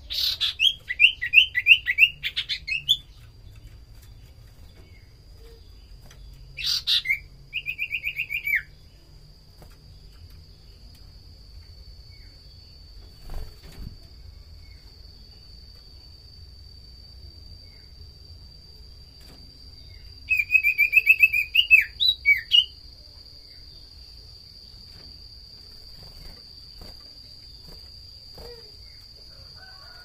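Common iora (sirtu, cipoh) singing in three bursts: runs of quick, repeated falling chirps, each opening with a sharp high note, near the start, about seven seconds in and about twenty seconds in. A faint steady high whine runs underneath.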